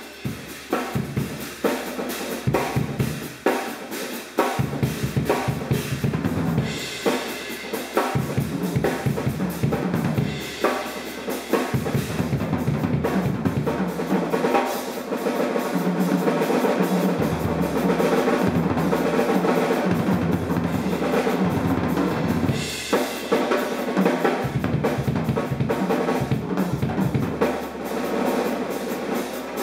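Acoustic drum kit played continuously: snare, toms, bass drum and cymbals in a dense stream of strokes with rolls and fills.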